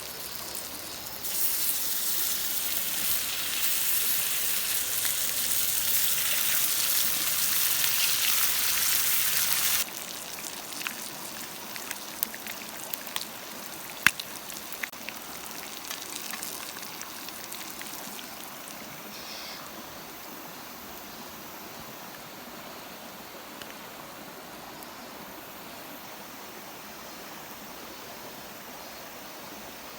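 Loud sizzling hiss of food frying for hamburgers. It starts about a second in and cuts off abruptly after about eight seconds. A few sharp crackles follow, then a quieter steady hiss.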